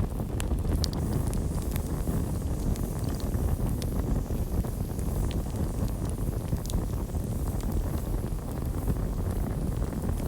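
Campfire burning: a steady low rumble of flames with scattered sharp crackles and pops.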